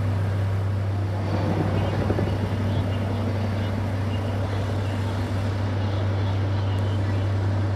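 Helicopter circling overhead: a continuous engine and rotor sound over a steady low drone.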